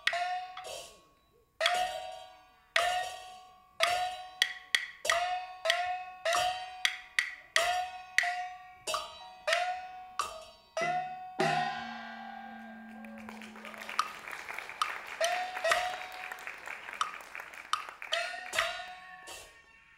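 Live traditional percussion accompanying a Taiwanese glove puppet (budaixi) show: sharp wood-block-like strikes in an uneven rhythm, many followed by a short ringing tone. About halfway through, the separate strikes give way to a dense, shimmering roll lasting several seconds, and the sharp strikes return near the end.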